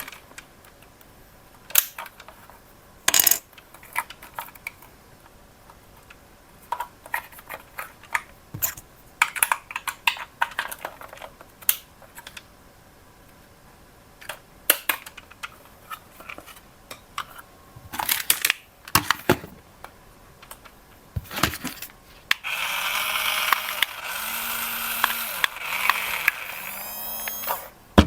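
Scattered plastic clicks and knocks of a radio-controlled toy being handled, then, near the end, the small electric motor and plastic gears of the RC construction toy whirring for about five seconds, stopping and starting a few times.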